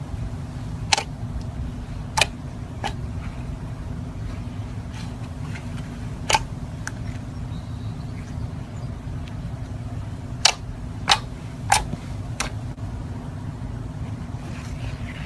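Slime being squeezed and pressed, with about eight sharp pops of air bubbles bursting in it, four of them close together near the end, over a steady low hum.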